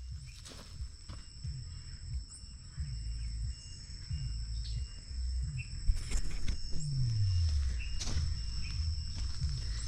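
Outdoor ambience: a steady high-pitched insect drone over a low rumble, with a few short knocks of footsteps or handling among the plants.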